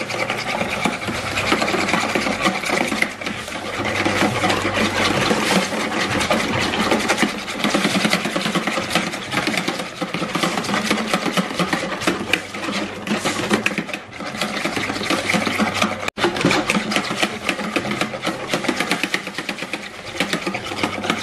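Wire balloon whisk beating eggs and sugar in a plastic bowl: fast, steady rhythmic clicking and scraping of the wires against the bowl, with a momentary break about 16 seconds in. The mix is being beaten until the sugar dissolves and it turns slightly foamy.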